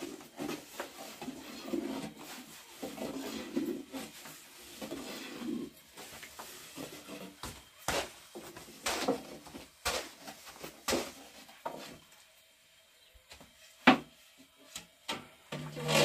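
Thin wooden rolling pins rolling flatbread dough out on round wooden boards: a low rubbing rumble at first, then a string of sharp wooden knocks and taps in the second half as the pins strike the boards.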